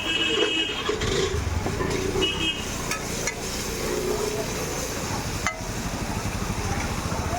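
Street traffic with a high horn tooting twice: once in the first second and briefly again about two seconds in. People's voices murmur underneath.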